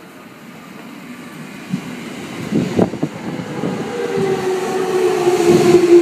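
A JR 209 series 2200 subseries electric commuter train pulls into the station, growing louder as it comes alongside. Its wheels clack over rail joints, and a steady whine sets in about four seconds in.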